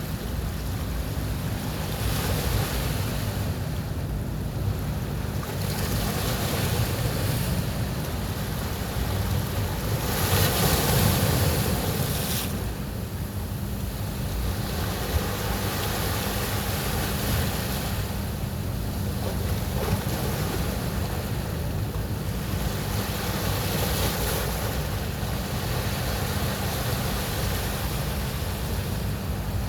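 Caribbean surf breaking on a beach: a continuous wash of waves that swells and recedes every few seconds, the biggest wave washing in about a third of the way through. A low rumble of wind on the microphone runs underneath.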